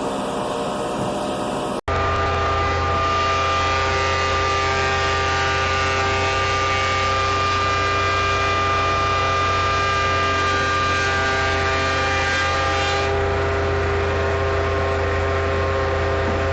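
18-inch Woodmaster planer running steadily: a loud, even motor hum with a whine from the spinning cutterhead. There is an abrupt cut just under two seconds in, where it jumps from a quieter level to full volume.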